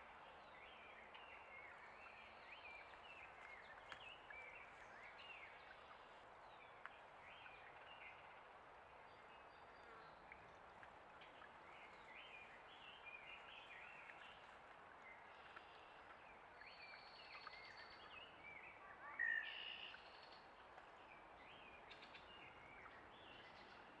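Faint outdoor ambience: scattered short chirps and calls of small birds over a steady low hiss, with one louder call about nineteen seconds in.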